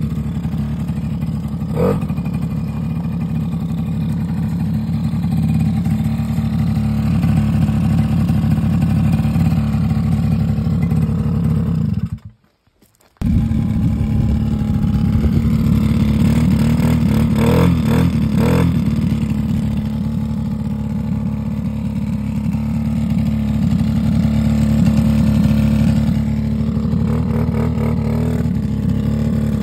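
Suzuki LT50's small 49cc two-stroke engine running steadily, cutting out to near silence for about a second about twelve seconds in.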